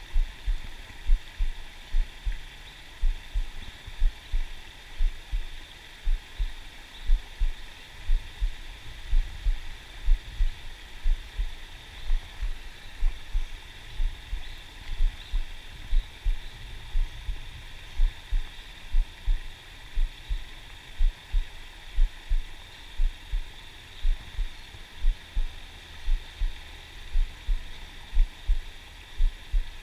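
Low, dull thumps about one and a half times a second, steady like a pulse, picked up through a chest-mounted camera, under a constant high hiss.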